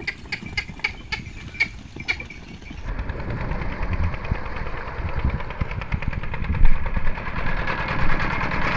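A quick run of sharp clicks, about three or four a second. About three seconds in, a single-cylinder stationary diesel engine of the Petter type that drives a tube-well pump takes over, running with a fast, even knocking beat over a rush of water.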